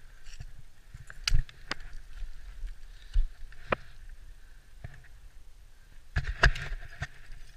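Ice axes and crampons biting into a steep snow-covered ice face: a handful of sharp crunching strikes, the loudest about a second in, near three seconds and in a cluster about six seconds in, among lighter clicks of metal climbing gear.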